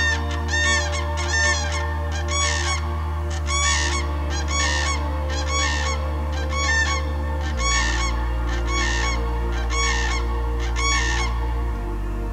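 A pair of common cranes trumpeting together in their courtship and territorial duet: loud calls repeated about once or twice a second, the gaps widening a little toward the end, stopping about a second before the end. Under the calls, low sustained music chords.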